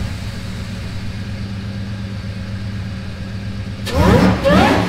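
Car engine idling steadily, then revved twice in quick succession near the end.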